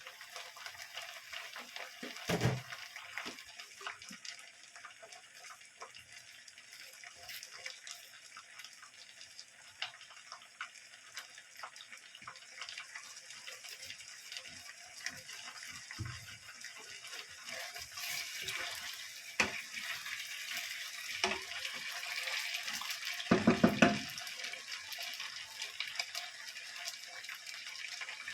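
Water running from a kitchen tap into a sink, with a knock about two seconds in and a few louder knocks near the end, like things being handled in the sink.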